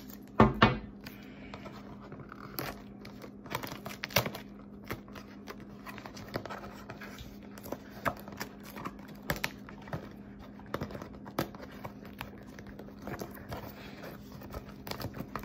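Masking tape being torn and pressed around a balloon's neck on a paper plate: scattered small crinkles, scratches and taps, with one louder thump about half a second in.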